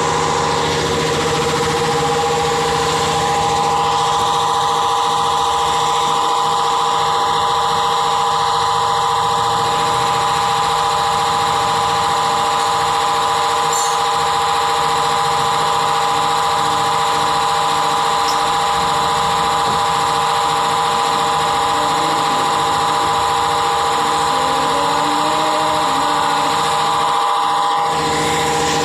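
Milling machine running steadily while boring a hole in a metal plate, giving a constant machine hum with several held whining tones.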